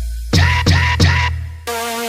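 Electronic dance music with heavy sub-bass: three punchy kick-and-bass hits in quick succession, then a held synth chord over booming bass near the end.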